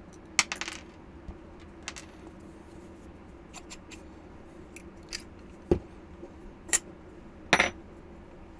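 Metal parts being handled: aluminium head plates clacking against each other and against a steel shaft as they are slid apart. There are a handful of sharp clicks spread through, a duller knock past the middle, and a faint steady hum underneath.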